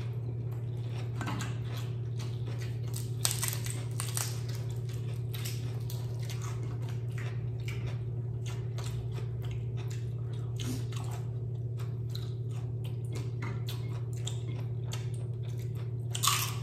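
Close-miked chewing and biting of crispy fried chicken skin: many short, sharp crunches, the loudest bite near the end, over a steady low hum.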